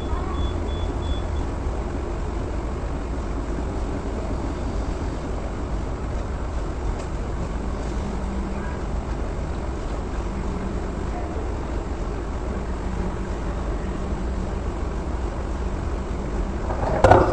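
A steady low mechanical rumble, like a nearby engine running, with a short loud clatter near the end.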